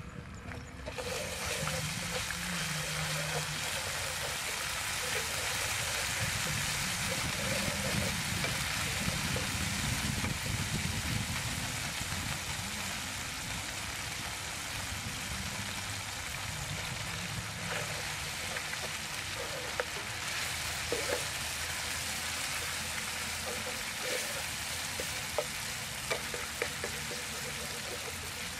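Garlic and then sliced meat frying in oil in a nonstick pan on a portable gas stove: a steady sizzle that swells about a second in. Sharp taps and scrapes of the spatula on the pan come mostly near the end.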